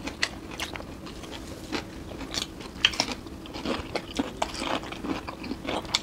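Close-up chewing and biting of food by two people eating with their hands: irregular crunches and mouth clicks, over a faint steady hum.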